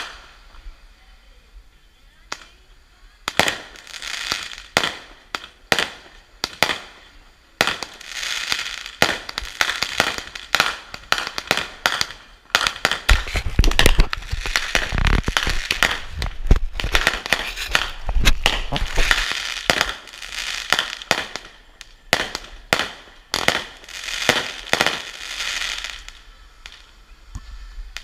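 Consumer fireworks going off: a few separate sharp bangs, then a long dense run of rapid bangs and crackling, busiest about halfway through, thinning out near the end.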